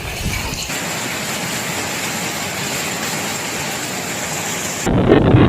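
Heavy rain falling as a steady, even hiss. Near the end it cuts to a louder, deeper rush of storm noise.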